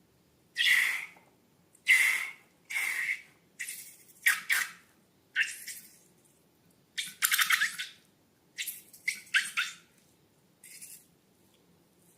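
Slime being squeezed and worked by hand: about a dozen short, irregular wet squelches and crackles, the longest and most crackly about seven seconds in.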